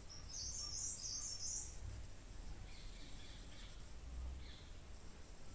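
Small birds chirping: a quick run of high chirps in the first two seconds, then fainter calls, over a low steady hum.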